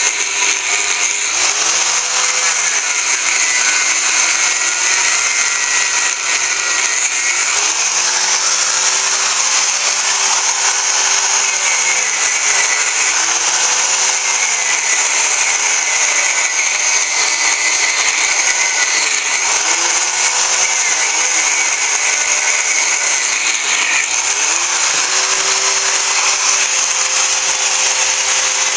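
Angle grinder cutting through the metal pump assembly of a Kärcher pressure washer. The motor's pitch dips and recovers several times as the disc bites under load.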